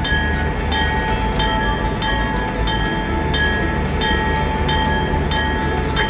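Battery-powered toy steam train running on plastic track: a steady whine under a regular repeating chug-like pattern about every 0.7 seconds.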